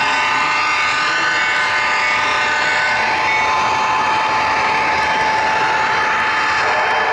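HO scale model train running along the track, heard up close from a camera riding on it: a steady running noise with a steady high whine, its upper tones fading about three seconds in.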